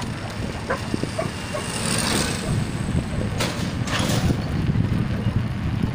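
Steady low rumble of wind and road noise while cycling along a street with traffic. A brief hiss comes about two seconds in, and two sharp clicks about half a second apart follow past the middle.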